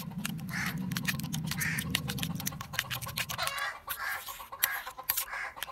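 A steel spoon clinking and scraping rapidly against a steel bowl as raw eggs are beaten, with chickens clucking in the background.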